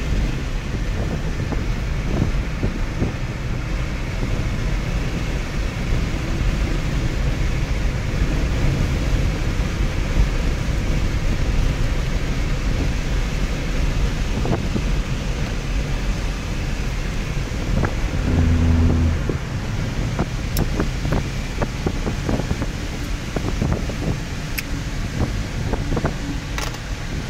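Road noise inside a moving car's cabin: tyres on a wet road and wind make a steady low rumble, with wind buffeting the microphone. A short low tone sounds about two-thirds of the way in, and scattered clicks come in the last third.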